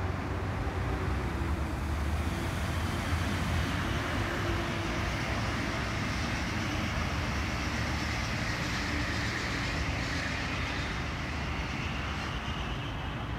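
Steady city road-traffic noise: a continuous low rumble and hiss of passing vehicles without distinct events.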